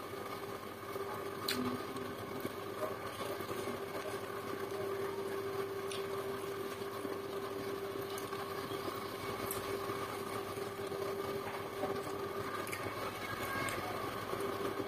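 Eating sounds: a few sharp crunches from chewing fried salted fish and rice by hand, over a steady droning hum.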